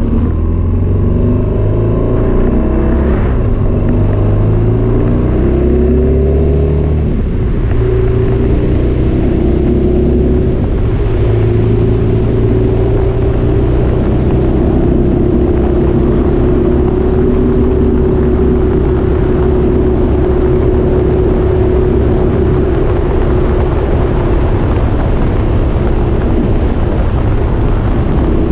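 Motorcycle engine pulling hard and rising in pitch through several gear changes over the first seven seconds or so, then running at a steady cruise, with wind rushing past.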